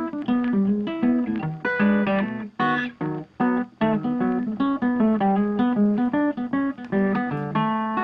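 Background music: an acoustic guitar picking a quick run of plucked notes.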